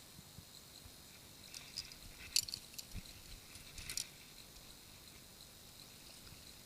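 A short run of faint small clicks and rattles, starting about a second and a half in and lasting about two and a half seconds, with the sharpest clicks near the middle and near the end of the run.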